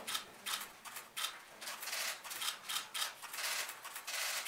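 Press photographers' DSLR camera shutters clicking in rapid, irregular bursts, several cameras firing at once, with the densest run a little past three seconds in.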